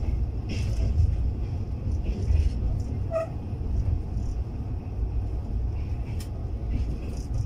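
Steady low rumble of a moving passenger train, heard from inside the coach, with a few sharp clicks along the way.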